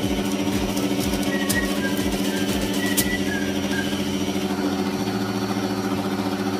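Electric stand mixer running steadily with a fast low pulsing, its beaters whisking egg whites into meringue. A single sharp click about three seconds in.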